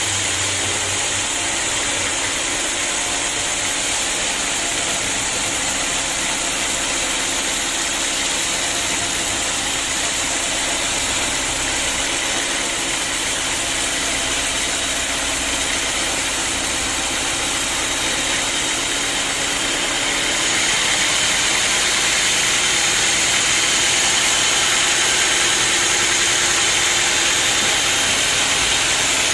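Sawmill machinery running steadily, getting louder and hissier about twenty seconds in.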